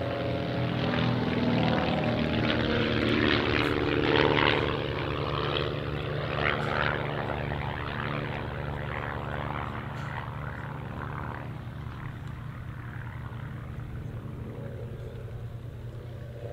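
Van's RV-8 aerobatic plane's engine and propeller running hard through a display manoeuvre. The propeller note is loudest about four to seven seconds in as the plane passes closest, then gradually fades as it climbs away.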